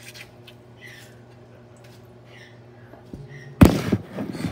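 Faint steady hum with a few soft small sounds while a lemon is squeezed by hand over a metal bowl, then about three and a half seconds in a sudden loud knock and clatter with rustling as the recording device is jostled.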